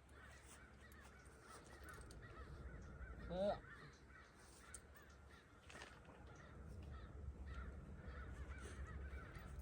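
Faint bird calls in the background: many small chirps, with one short, louder call that rises in pitch about three and a half seconds in, over a low steady hum.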